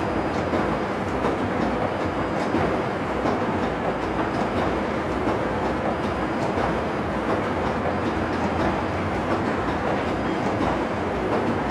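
Production printer running, feeding printed sheets out onto its output tray: a steady mechanical clatter with regular clicks and a short high tone that comes back about once a second.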